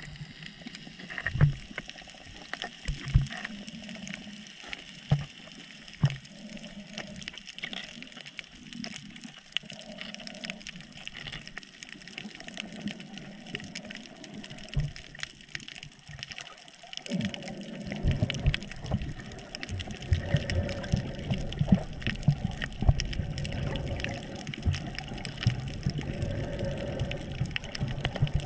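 Water sloshing and bubbling as picked up by a GoPro camera in the water while snorkeling, with a few sharp knocks in the first half. A bit over halfway through, the water noise turns louder and busier.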